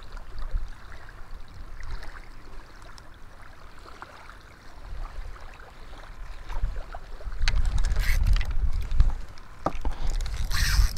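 Wind buffeting the camera microphone in low, gusting rumbles that grow stronger in the second half. A few sharp knocks and a rustle of handling come near the end.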